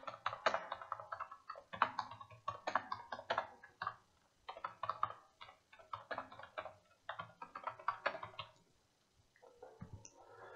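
Computer keyboard typing in quick bursts of keystrokes, with short pauses between words.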